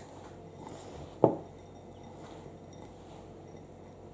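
A single sharp clink of kitchenware about a second in, amid faint handling.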